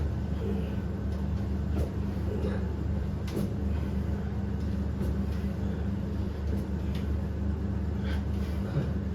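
A steady low mechanical hum, like a motor or fan running, with a few faint, sharp clicks at irregular intervals.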